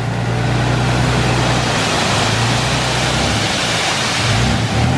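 Load of sand pouring and sliding out of a tipped dump truck bed: a loud, steady rushing hiss. Under it the truck's engine runs with a low hum that breaks up about three seconds in.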